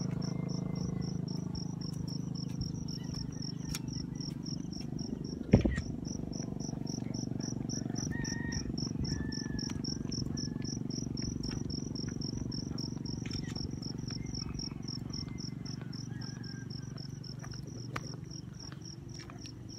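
An insect, cricket-like, chirping in a steady, rapid, even pulse over a low steady rumble, with a sharp knock about five seconds in and a smaller one near the end.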